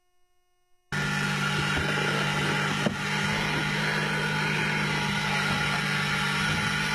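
Steady hiss and hum in the cab of a working steam locomotive, cutting in suddenly about a second in after near silence, with a faint click or two.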